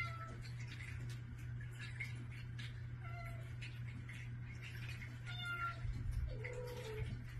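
Domestic cats meowing at a closed door, wanting to be let in and fed. There are a few short meows, then a lower, longer one near the end.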